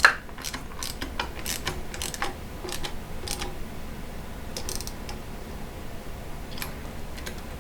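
A sharp metallic knock, then a socket ratchet clicking in short, irregular strokes with light tool clinks as bolts on a Model T carburetor flange are tightened.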